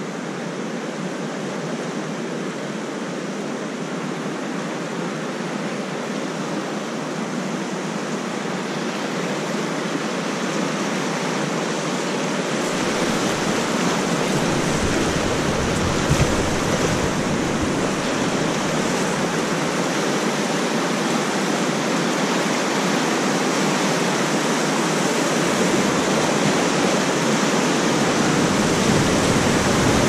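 River rapids rushing around an inflatable raft, a steady noise of churning water that grows louder as the raft moves into the white water, with a deeper rumble coming in about twelve seconds in.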